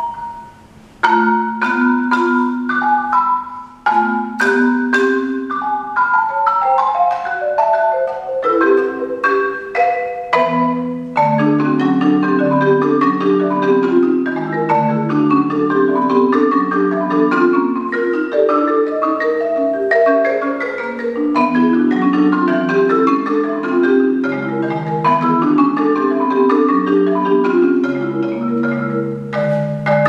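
Solo concert marimba played with mallets. Separate notes with short pauses at first give way, about eleven seconds in, to a dense, unbroken flow of quick notes that reach down into the instrument's lower register.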